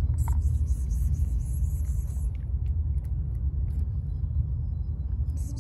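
Steady low rumble of wind buffeting the microphone. A high hiss joins it for about two seconds near the start and again briefly near the end.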